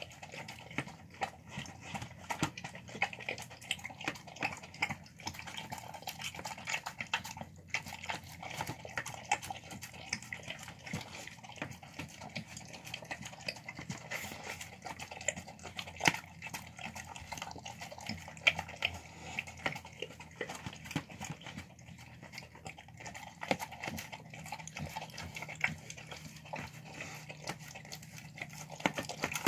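A dog eating wet food from a plastic tub: continuous wet licking and chewing, with many quick smacks and clicks as its tongue and muzzle work against the plastic.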